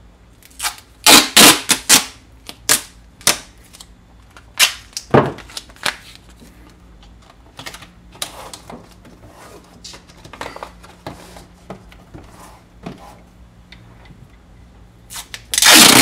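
Duct tape being pulled off the roll and pressed down, in a series of short crackling rips, loudest about a second in and again at the end.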